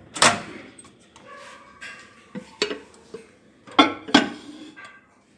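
A lid being set onto a microwave-safe bowl of rice and water and the bowl being handled into a microwave oven: a few sharp clinks and knocks of dish on dish and on the oven, the loudest pair about four seconds in.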